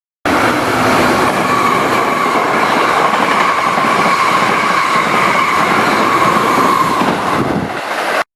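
A train passing close by: loud, steady rail noise with a high steady tone over it, cutting off abruptly about eight seconds in.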